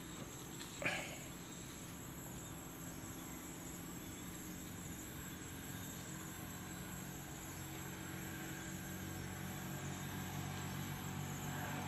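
Faint low, steady mechanical hum, slowly growing louder, with one light knock about a second in.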